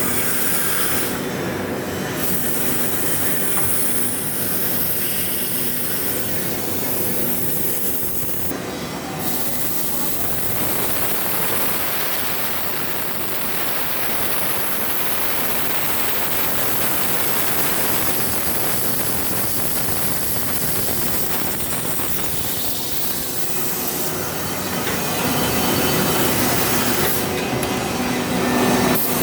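CNC drilling machine boring through a 16 mm high-tensile steel plate: a steady, harsh grinding and rubbing noise with a thin high whine through the middle. Short bursts of high hiss come a few times, and the noise grows a little louder near the end.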